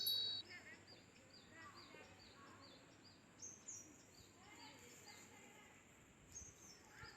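Birdsong: a short, high, falling chirp repeated about twice a second, with a few fainter, lower calls among them.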